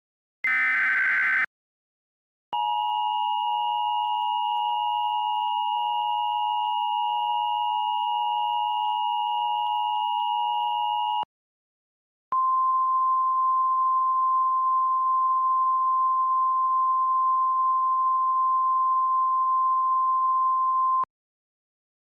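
Simulated Emergency Alert System tones. First a one-second screech of a SAME digital header burst. Then the steady two-tone EAS attention signal (about 853 and 960 Hz, with a higher tone above) for about nine seconds. After a short gap comes a single steady 1050 Hz weather-radio alert tone for about nine seconds, cutting off sharply.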